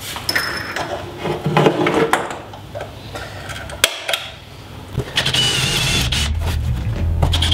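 Irregular knocks and clicks of tools handled on a pine benchtop, with a sharp click just before four seconds. From about five seconds a cordless drill runs steadily, boring into the soft pine top.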